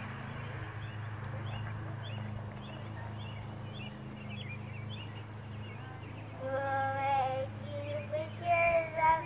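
Steady low hum with faint, scattered high chirps. About six and a half seconds in, a high-pitched voice, like a young child's, starts calling out in drawn-out, wavering tones.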